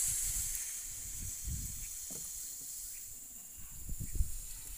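Water sizzling on a hot boat engine: a loud high hiss that is strongest at the start and slowly fades, with a few low thumps underneath.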